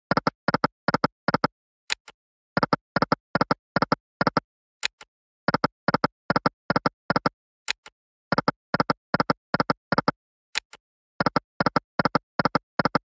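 Online video slot game sound effects, spin after spin. Each spin opens with a sharp click, followed by a quick run of short electronic beeps as the reels stop one by one. The cycle repeats about every three seconds, with silence between spins and no music.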